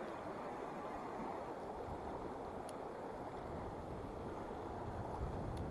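Steady rushing of a small, clear mountain stream running over rocks and through a riffle, with two faint ticks.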